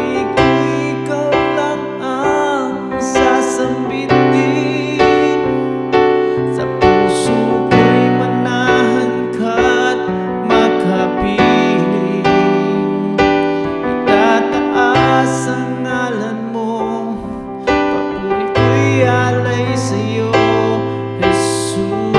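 Piano-led instrumental passage of a slow worship song: struck piano chords fading one into the next over held bass notes.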